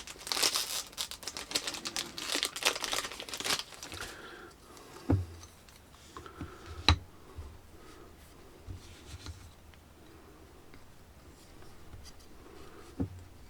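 Packaging crinkling and tearing as a shower head and its parts are unwrapped, for about four seconds, then three light knocks as the parts are handled.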